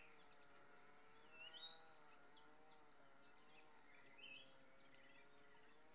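Faint bird chirps and short whistled calls, a scattered handful, the loudest about one and a half seconds in, over a steady, slightly wavering droning hum.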